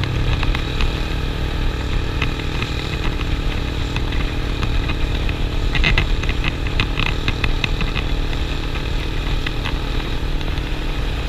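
Suzuki motorcycle engine running steadily at a cruise, heard from the rider's seat, with a short run of clicks about six seconds in.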